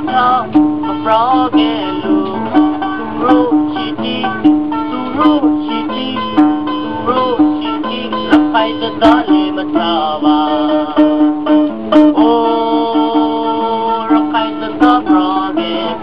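Rakhine folk music on a plucked mandolin, with a low note repeated in a steady pulse under a melody that slides in pitch, and sharp percussive clicks about once a second.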